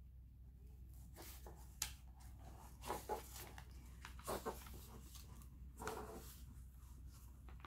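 Faint crinkling and crackling of a plastic-coated diamond painting canvas being flexed and turned over by hand, with a few short sharp crackles spread through.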